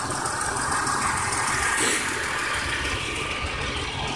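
2001 Buick Century's 3.1-litre 3100-series V6 idling steadily.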